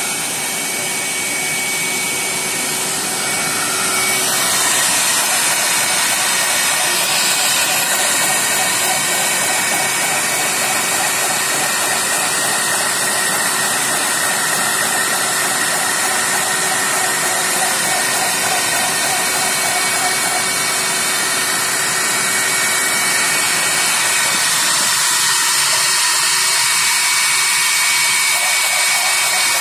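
Automatic drilling machine running steadily, its spindle whirring with a hiss as it drills a spiral row of holes in a metal roller-brush tube.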